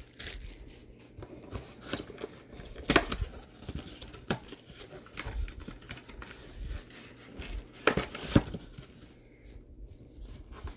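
Cardboard Bowman Mega Box of baseball cards being opened by hand: the lid flap and inner tray rustle and scrape, with a few sharp taps and knocks, one about three seconds in and two close together near eight seconds.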